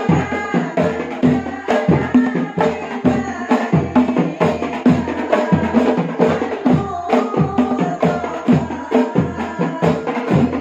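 Women singing an Islamic sholawat in praise of the Prophet, backed by a steady beat of rebana frame drums and other percussion, about two beats a second.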